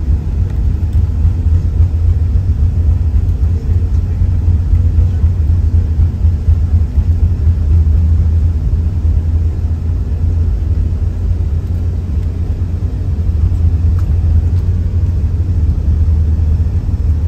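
Steady deep rumble heard inside the cabin of an Airbus A380-800 rolling down the runway for take-off: engine noise and runway roar.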